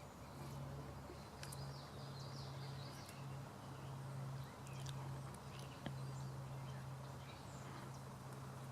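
Quiet outdoor marsh ambience: a low steady hum that drops out briefly every second or so, with faint, scattered high bird chirps and a single sharp click about six seconds in.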